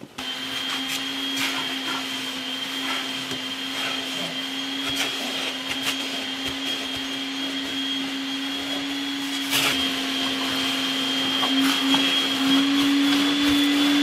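Vacuum cleaner running steadily on a car interior, a motor hum with a high whine and scattered knocks, one louder about ten seconds in. The motor note grows louder and slightly higher near the end.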